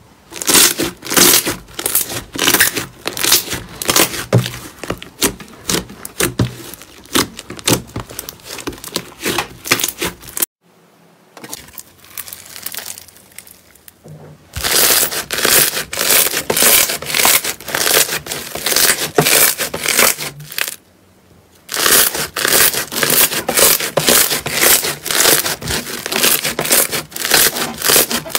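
Slime being pressed and squeezed by hand, giving rapid crackling, clicking pops. It comes in three runs, with a quieter stretch about ten seconds in and a short pause about seven seconds from the end.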